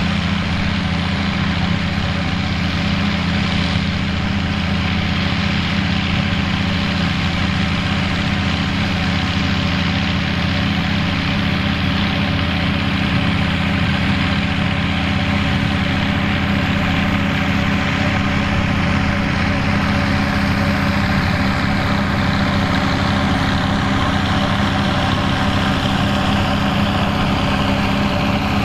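Turbocharged four-cylinder diesel engine of a Fiat 800 tractor running steadily under load. A faint whine falls slowly in pitch over the second half.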